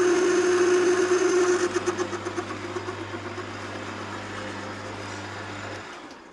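Metal lathe running at high speed while a parting-off blade cuts into aluminium: a steady pitched tone over the machine noise. After about two seconds the tone wavers and fades, the sound dies away, and the motor hum cuts off shortly before the end as the lathe is stopped.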